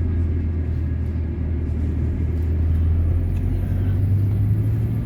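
Steady low engine and road rumble heard from inside a moving bus.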